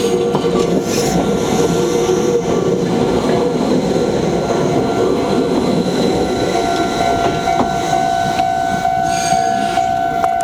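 Meitetsu Mikawa Line local train running through a level crossing, wheels rumbling with occasional clacks over the rail joints. The crossing's warning bell rings steadily over the train noise.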